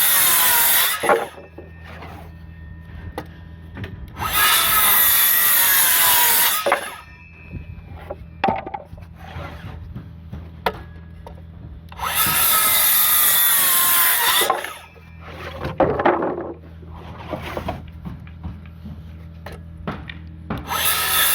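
Hilti cordless 6.5-inch circular saw making repeated crosscuts through heavy 2x8 lumber, each pass lasting a couple of seconds: near the start, about four seconds in, about twelve seconds in and again at the very end. The saw's whine drops in pitch as the blade bites into the wood. Between cuts there are scattered knocks of the wood and the saw being handled.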